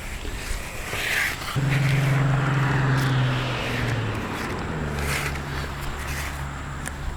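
A motor vehicle's engine hum: a pitched drone that slides down in pitch about four seconds in and settles into a lower, steady hum.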